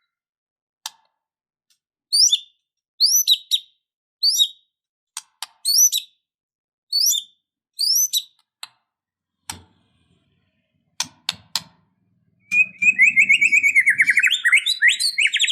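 White-rumped shama singing: a string of quick up-slurred whistled notes, then scattered sharp clicks, then a loud, fast rattling trill in the last few seconds.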